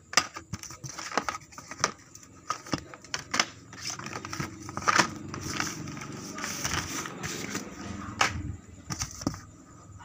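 Plastic-packaged motorcycle spare parts and cardboard being handled in a box: irregular crinkling, rustling and sharp clicks of blister packs knocking together.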